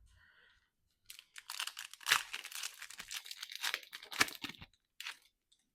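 The wrapper of a 2023 Prizm NFL trading-card pack being torn open and crinkled: a run of rustling rips from about a second in, ending with one short crackle near the end.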